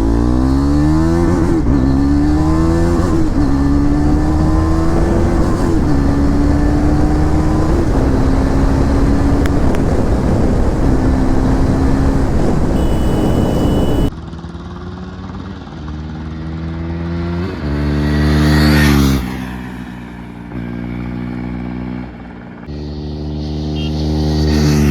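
KTM Duke 390's single-cylinder engine through an SC-Project full-system exhaust, accelerating hard through the gears: the pitch climbs and drops back at each upshift, under heavy wind rush. About fourteen seconds in, the sound cuts to another recording where the bike revs up and passes, loudest a few seconds later, then revs up again near the end.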